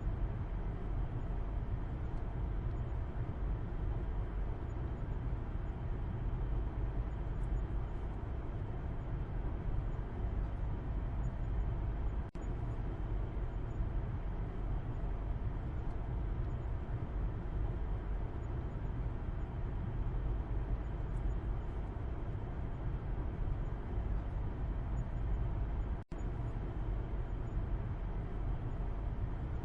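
Steady low road and engine rumble heard from the back seat inside a moving car's cabin. The sound cuts out for an instant twice, about twelve seconds in and again near the end.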